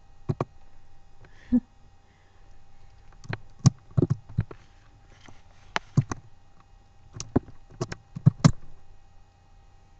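Scattered sharp clicks and knocks with light rustling, irregular and some loud: handling noise from a hand playing with pet rats close to the microphone, over a faint steady hum.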